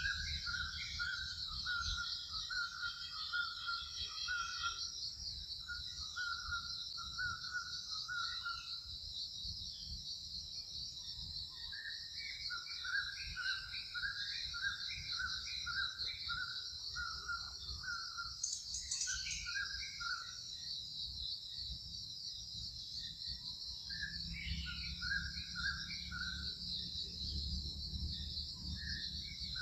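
A steady, high-pitched insect chorus, with a bird calling in runs of short repeated notes, about two a second, that stop and start again several times.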